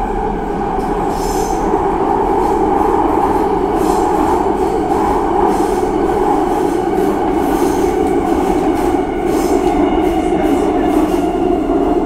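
Subway train running at speed through an underground tunnel, heard from inside the carriage: a loud, steady rumble of wheels on the track with a constant whine above it.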